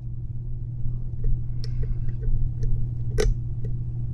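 Lock pick and tension wrench working the pins of a US Lock mortise cylinder: scattered light metallic ticks as pins are lifted and set, with one sharper click a little after three seconds.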